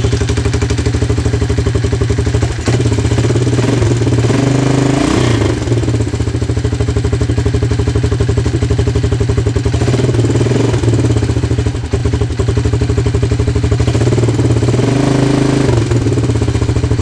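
1984 Honda TRX200 ATV's single-cylinder four-stroke engine running steadily just after starting, its pitch rising briefly three times. It is being test-run after a new spark plug and cap and a carburetor drain.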